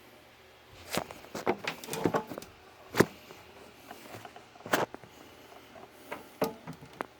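Irregular sharp clicks and knocks of hard objects being handled, about a dozen in all, the loudest about three seconds in and another strong one near five seconds.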